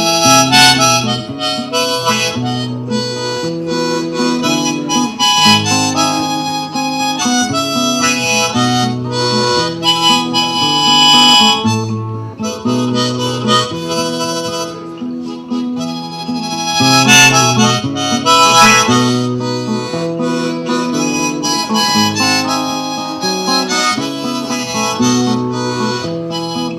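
Harmonica in a neck rack playing a melody over acoustic guitar accompaniment, an instrumental break in a bard song; the harmonica swells louder about ten seconds in and again near the middle.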